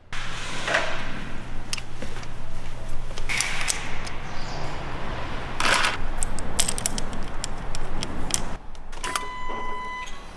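Workshop sounds of engine reassembly: metal parts and hand tools clicking and clinking on an aluminium cylinder head, over a low steady hum. A steady electronic tone sounds near the end.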